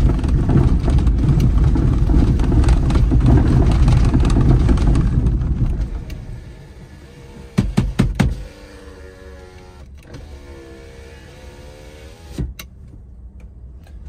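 Vehicle driving, a steady low rumble that drops away about six seconds in. Then a quick run of sharp clicks and a faint wavering tone.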